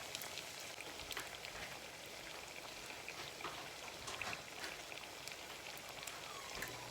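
Food frying in hot oil: a steady sizzle with many small irregular pops and crackles.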